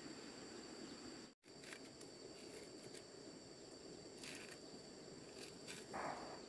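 Faint scraping of a curved blade shaving kernels off a fresh corn cob into a metal pot, a few short strokes with the loudest near the end, over a steady high insect chirring. The sound drops out for a moment about a second and a half in.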